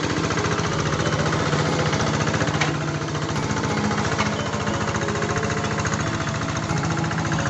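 Single-cylinder diesel engine of a Quick G3000 Zeva two-wheel hand tractor running steadily under load as it pulls a plow through dry soil, with a rapid, even firing pulse. Two sharp clicks come through, one about two and a half seconds in and one about four seconds in.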